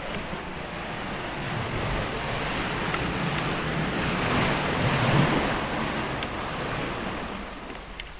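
Sea surf washing into a rocky sea cave: the rush of water swells to a peak about five seconds in and then dies away.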